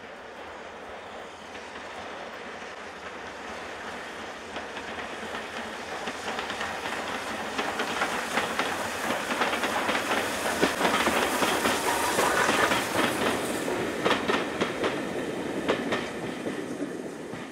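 A train passing. It grows louder to a peak about ten to thirteen seconds in, with its wheels clicking over the rail joints, then falls away near the end.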